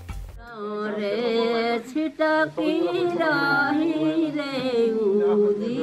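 A woman singing a slow, chant-like melody in long, wavering held notes. It begins about half a second in, over a steady low drone.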